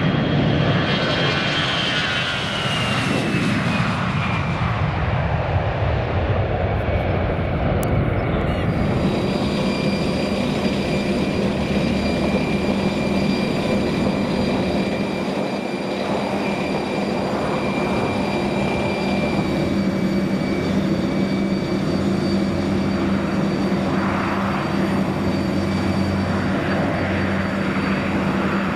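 Jet engines of an S7 Airbus A320-family airliner running at power as it rolls past on the runway, their whine falling in pitch over the first few seconds. After a sudden change about eight seconds in, a steady aircraft-engine hum with a high, even whine.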